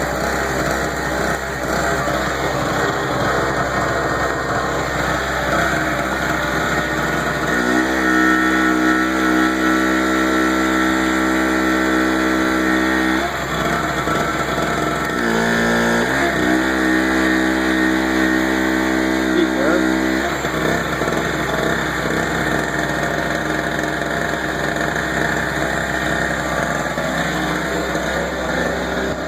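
Harbor Freight Storm Cat portable generator running steadily, with a heat gun plugged in as a load. About a third of the way in a strong steady hum joins the engine for several seconds, breaks off briefly with a dip in pitch, then returns for a few more seconds before the generator runs on alone; the heat gun is too much load for the generator.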